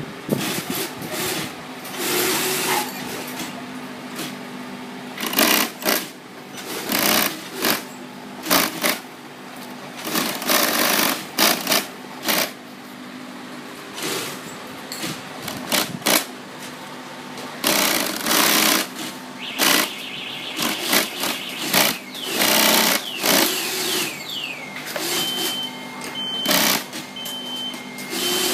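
Industrial single-needle cylinder-bed sewing machine stitching in repeated short bursts, stopping and starting as the work is guided through, with a steady hum between the bursts.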